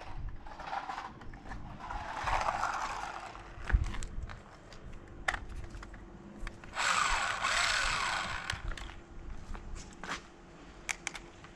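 Small electric motor of a toy RC car whirring in two short bursts as its wheels spin freely while the car is held in the hand, the second burst winding down in pitch; scattered clicks of handling in between.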